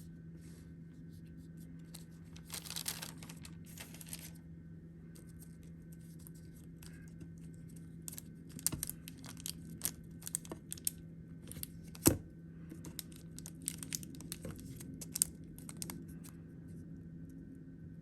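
Hands handling the packaging of a cigar box, with crinkling and rustling and a run of small clicks and crackles; one sharp click about twelve seconds in is the loudest. A steady low hum lies underneath.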